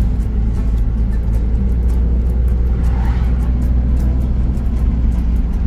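Ford Transit camper van driving at a steady speed on a paved road, heard from inside the cab: a steady deep engine and road rumble, with music playing over it.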